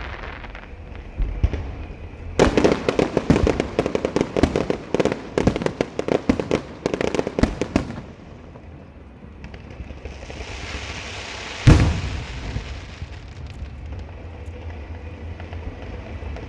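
A string of firecrackers going off in a rapid crackling run of sharp pops for about five seconds. A few seconds later comes a hiss, with a single loud bang in the middle of it.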